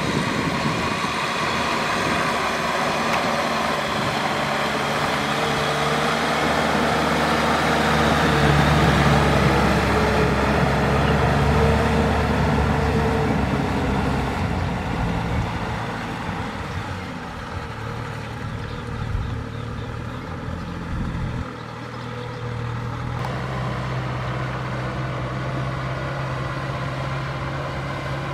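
Kubota M6040 tractor's four-cylinder diesel engine running steadily under load while it works a rotary tiller through flooded paddy mud, with the wheels and tiller churning and splashing mud and water.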